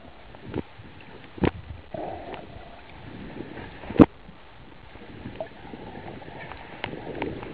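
Muffled underwater sound through a submerged camera: a steady hiss with a few sharp knocks, the loudest about four seconds in, and a few small ticks near the end.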